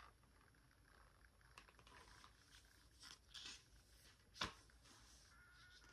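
Near silence, with a few faint rustles of picture-book pages being handled. One sharp tap comes about three-quarters of the way in.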